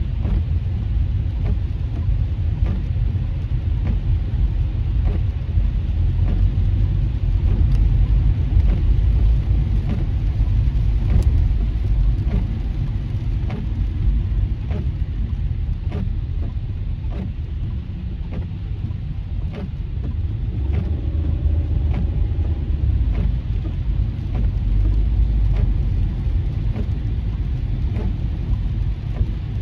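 Inside a car driving on a wet highway in heavy rain: a steady low rumble of tyres on the wet road, with scattered light taps of raindrops hitting the windshield.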